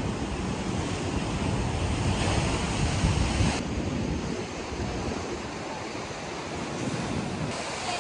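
Sea surf surging and breaking in a narrow rocky inlet, with wind buffeting the microphone; the low rumble eases about halfway through.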